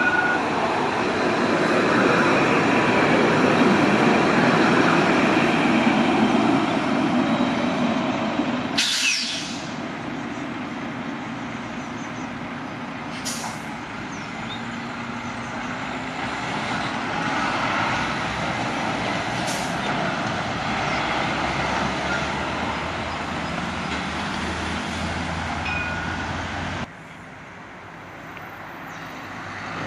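Road traffic passing a tram level crossing, loudest in the first several seconds, while a light-rail tram rolls slowly toward the crossing. A few sharp clicks come near the middle, and the level drops abruptly near the end.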